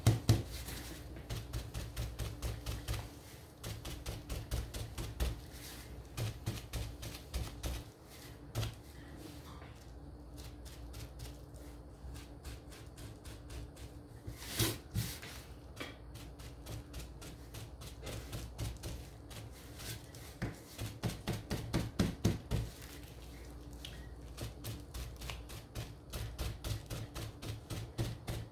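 Paint-loaded bubble wrap dabbed over and over onto a wooden windmill cut-out on a table: quick light taps, several a second, with one louder knock about halfway through.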